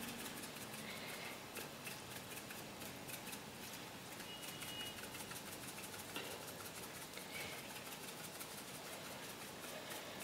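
Faint sounds of a spoon stirring thin gravy simmering in an aluminium pot on a gas stove. A few faint short chirps come through, about one, four and seven seconds in.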